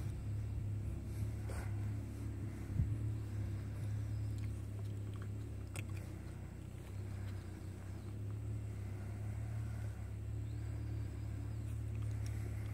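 A steady low rumble, like a motor running nearby, with a few faint clicks over it.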